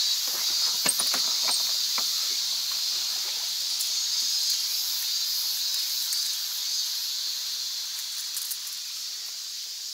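Steady high-pitched drone of a summer cicada chorus, slowly fading, with a few faint clicks about a second in.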